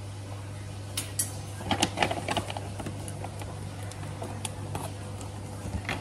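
A spoon clinking against a jar as ground coffee is spooned in, with sharp clicks bunched about two seconds in, then scattered taps and the rustle of a paper coffee bag being folded shut, over a steady low hum.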